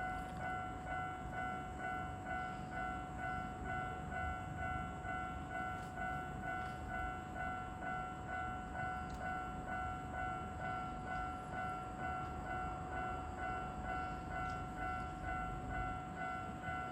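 Japanese railway level crossing warning bell ringing its repeated 'kan-kan' alarm in an even, unbroken rhythm.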